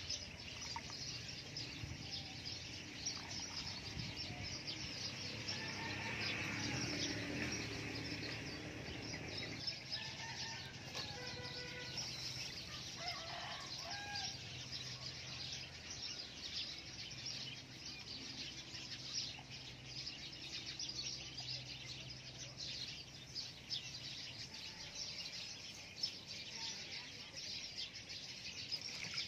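Chickens clucking and small birds chirping steadily, with light splashing as hands work vegetables in a basin of water.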